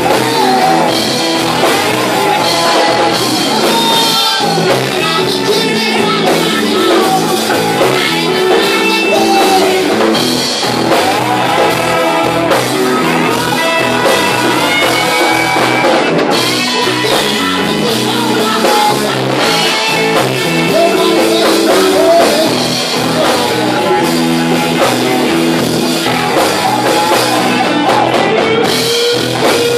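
Live blues band playing a slow blues: two electric guitars (a Fender Stratocaster and a Gibson Les Paul), bass guitar and drum kit, with a singer over the top.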